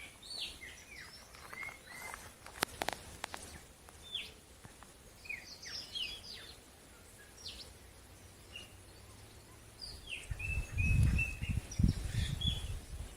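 Several small birds chirping and calling, with short, quick notes that mostly slide downward, some repeated in short runs. A low rumble comes in near the end.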